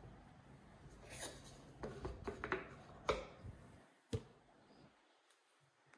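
Small wooden number card handled and slotted into a wooden teen board: a few light taps and scrapes of wood on wood, with one sharper knock about four seconds in.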